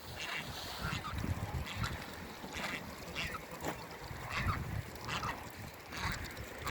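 Farmyard waterfowl calling: a steady run of short calls, about two a second, over a low rumble.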